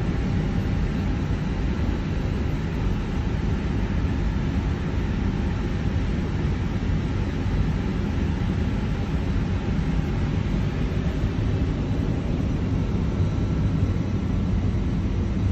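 Steady cockpit noise inside an Airbus A320 on the ground: a constant low rumble and hiss with a few faint high tones, from the aircraft's ventilation and running systems.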